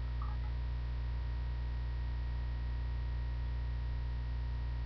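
Steady low electrical hum, with a faint high steady tone above it: mains hum on the recording.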